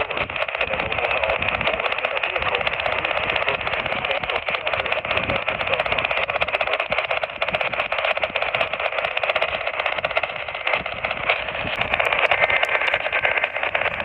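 Radio static: a steady, crackling hiss through a receiver's narrow audio band, with no clear voice in it.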